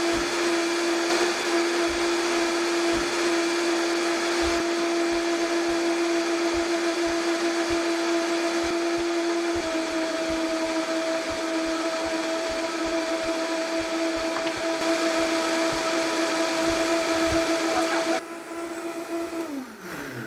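High-speed countertop blender running steadily, blending vegetables, ice and liquid into a smoothie. Its pitch steps slightly lower about halfway through, and near the end the motor is switched off and winds down with a falling pitch.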